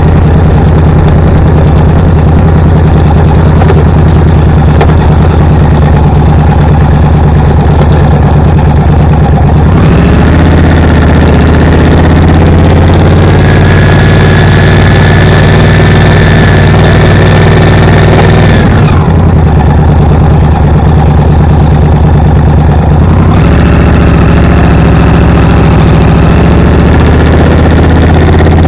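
Vehicle engine running steadily while driving. The engine note changes about ten seconds in, drops back near nineteen seconds and rises again a few seconds later, with a faint whine in between.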